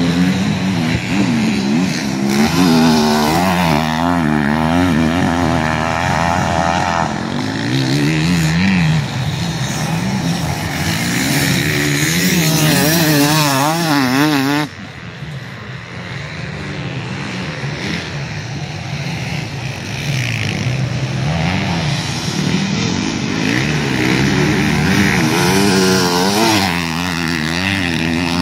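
Enduro motorcycle engines running hard, their pitch rising and falling quickly and repeatedly as the riders work the throttle. Loudness drops suddenly about halfway through, then builds again.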